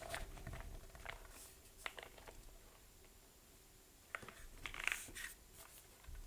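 Keystrokes on a plateless Thera75 mechanical keyboard with lubed and filmed JWK Seals switches: scattered soft clacks, a pause of about a second and a half, then a quick run of keystrokes.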